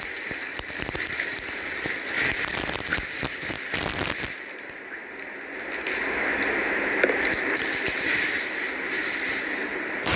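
Plastic packaging crinkling and rustling as a toy figure is unwrapped by hand, a dense crackle full of small clicks that eases off briefly about halfway through.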